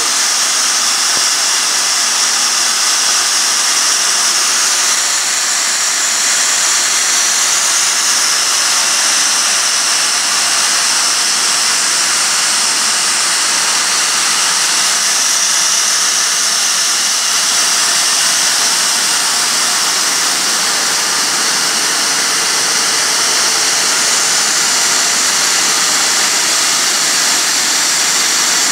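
Tower grain dryer's fan running with a loud, steady, hissing noise while drying corn.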